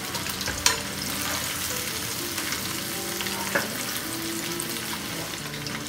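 Battered pork loin strips deep-frying in hot oil in a wok, a steady crackling sizzle, while a slotted metal skimmer stirs them and lifts pieces out. Two short sharp clicks come about a second in and past the middle.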